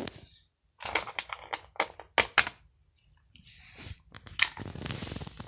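Light clicks and taps in quick succession, then a soft rustle with a few more clicks about three and a half seconds in: small plastic toy figures being handled and set down on a surface.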